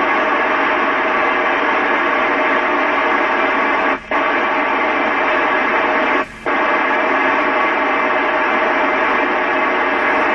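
FM radio receiver hiss on the ISS 145.800 MHz downlink: steady static with no voice from the space station, cutting out briefly twice.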